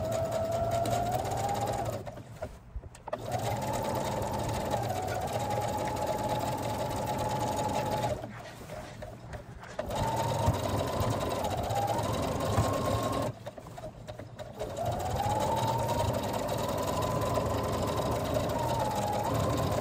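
Brother computerized sewing machine stitching a seam, its motor whine rising and falling in pitch with sewing speed. It stops briefly three times, about two, eight and thirteen seconds in, then starts up again.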